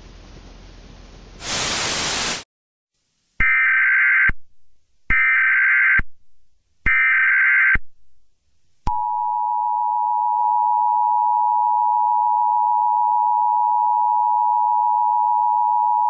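Emergency Alert System broadcast tones. A faint hiss gives way to about a second of loud static. Then come three screeching SAME data-header bursts about a second apart, and about nine seconds in the steady two-tone EAS attention signal (853 and 960 Hz) starts and holds to the end.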